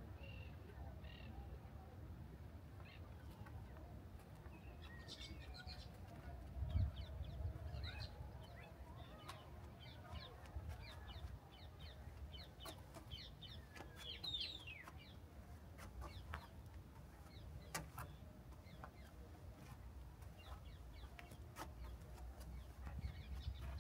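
Birds chirping and calling in many short, mostly falling notes, scattered through the whole stretch, over a low steady rumble. One brief low thump stands out about seven seconds in.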